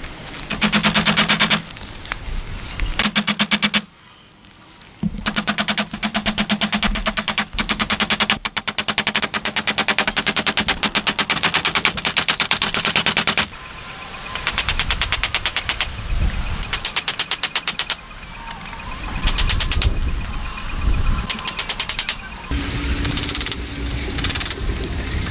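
Rapid, evenly spaced knocks of a hammer and hatchet striking wooden roof poles and slats, in several quick runs with short pauses between them.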